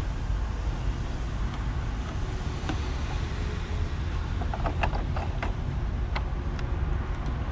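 Steady low background rumble with a few small plastic clicks and knocks in the second half as the AdBlue jerrycan and its spout are lifted away and the blue plastic filler cap is handled and screwed back on the AdBlue tank neck.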